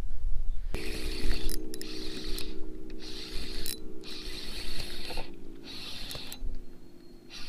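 Fishing reel being cranked and handled, its gears ratcheting and clicking in repeated spells, over the steady whine of an electric trolling motor that starts about a second in and drops slightly in pitch later.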